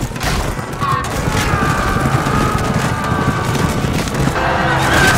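Film battle soundtrack: a loud, steady din of fighting with drawn-out cries and score music over it.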